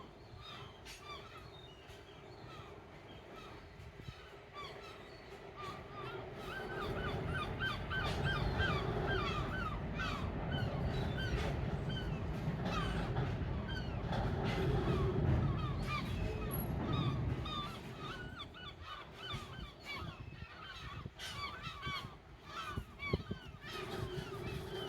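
Freight train wagons rolling past with a low rumble and regular clacks of wheels over the track, the rumble swelling and then fading after about seventeen seconds. Many short bird calls chatter throughout.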